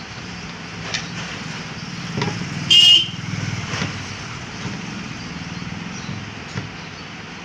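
Steady low hum of road traffic, with one short vehicle horn toot about three seconds in and a few faint clicks.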